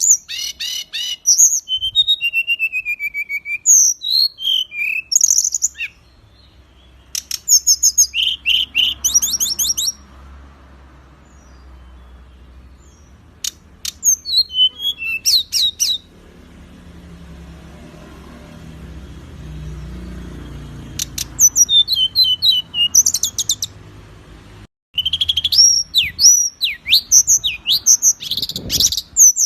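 Songbirds singing in bursts of fast, sharp chirps, whistles and trills: Indonesian masteran song, meant for training caged birds. The song pauses twice in the middle, leaving only a low hum.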